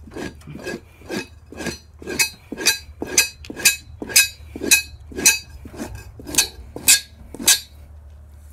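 The dull edge of a knife blade scraped down a beaver hide stretched over a metal pipe, fleshing fat off the skin. The strokes are short and rhythmic, about two a second, with a faint metallic ring, growing louder and stopping near the end.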